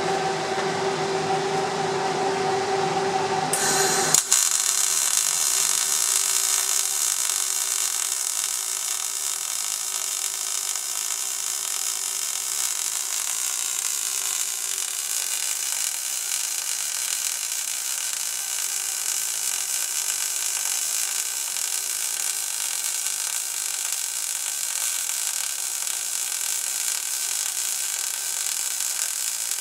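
MAG (gas-metal arc) welding arc burning steadily with a continuous high hiss as the back-side pass is laid on a thick steel plate butt joint. For the first four seconds a steady hum is heard; the arc comes in suddenly about four seconds in.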